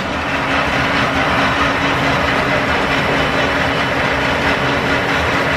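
Old belt-driven lathe in a line-shaft machine shop, running steadily while turning a cut on a metal shaft, with a steady hum under the machinery noise.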